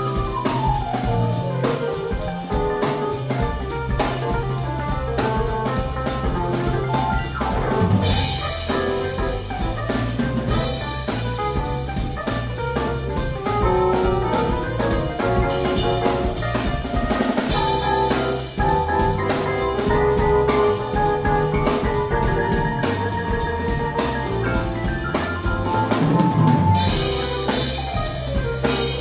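Live band playing: a drum kit keeps a steady beat with cymbals washing over much of it, under upright bass and keyboards.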